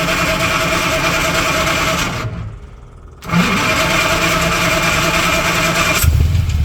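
A vintage car engine that had not been started in a long while, being started and run. About two seconds in the sound drops away for roughly a second and then comes back. Near the end a deeper, steady idle takes over.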